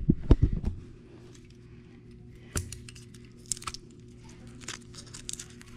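Hands unwrapping a taped, twisted-wire splice in an old car wiring harness: a few knocks at first, then scattered small crackles and clicks of tape and wire being worked apart, over a low steady hum.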